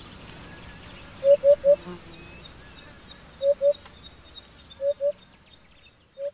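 African hoopoe calling: low, soft hoots in short groups, three in quick succession about a second in, then a pair of hoots roughly every one and a half seconds. Faint higher chirping sits behind them.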